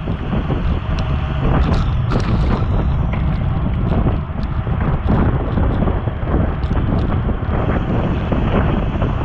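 Wind buffeting the microphone of a bike-mounted action camera at racing speed: a loud, steady low rush with occasional small clicks.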